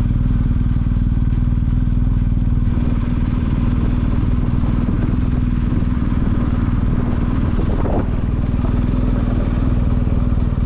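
Adventure motorcycle's engine running at low speed on a gravel dirt track, a steady low drone with no sharp changes.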